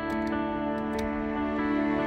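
Background music of sustained, steady tones.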